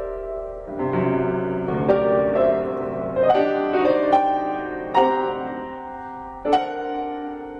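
Solo piano playing a slow passage of chords and single notes, each struck note left to ring, with a few sharper accents.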